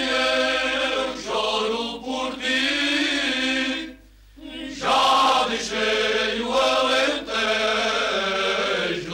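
Men's voices singing Cante Alentejano a cappella: slow, held phrases of Portuguese folk song with no instruments. There is a short break for breath about four seconds in, and then the singing resumes.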